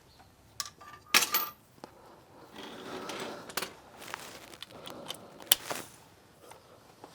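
Metal hand tools and parts clinking and clanking: a handful of sharp metallic knocks, the loudest about a second in, with shuffling and scraping between them.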